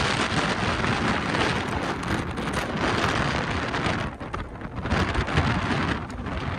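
Wind rushing and road noise through an open car window at speed, as a dense, steady roar that eases briefly about two-thirds of the way through.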